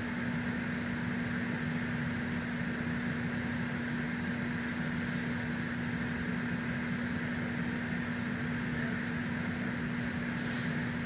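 Steady machine hum with a constant low tone and a hiss above it, unchanging throughout.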